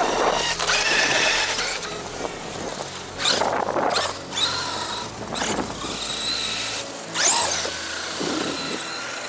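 Radio-controlled car's electric motor whining, revving up and down in several short swells.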